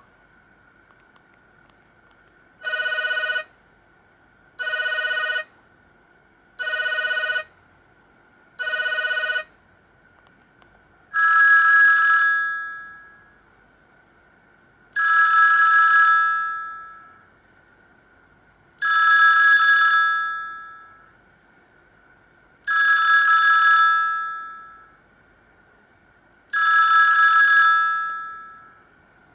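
Sony Ericsson W810i phone speaker playing Sony Ericsson K200i ringtones: first four short electronic beeps about two seconds apart, then a brighter ringing tone that repeats about every four seconds, each ring fading out.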